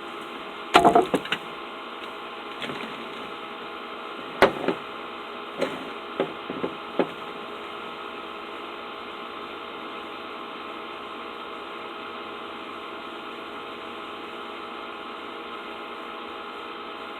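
Several sharp knocks and clatters in short clusters over a steady hum, the loudest about a second in, the last a few seconds before the midpoint.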